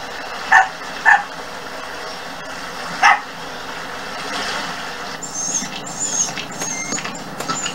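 A dog barking: two short barks half a second apart, then a third about two seconds later, over faint outdoor background. Thin high-pitched chirps come in near the end.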